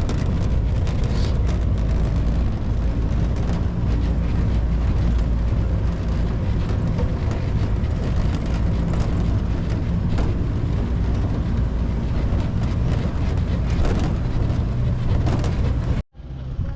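Steady low rumble of a motor vehicle's engine and road noise, heard from on board; it cuts off abruptly near the end.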